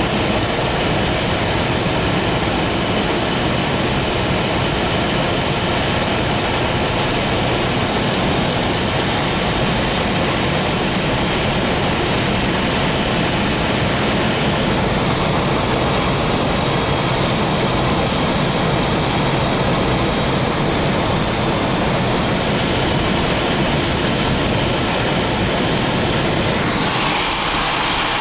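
Steady noise of a car driving in rain on a wet road, heard from inside the cabin: tyres hissing on the wet surface and rain on the car. Near the end the sound shifts to a brighter hiss with less low rumble.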